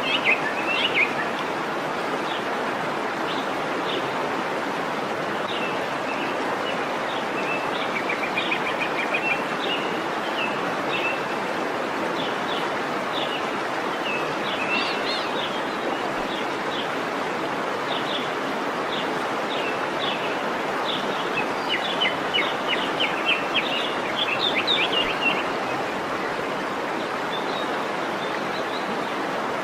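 Waterfall rushing steadily, with birds chirping over it throughout and a quick flurry of chirps about three quarters of the way through.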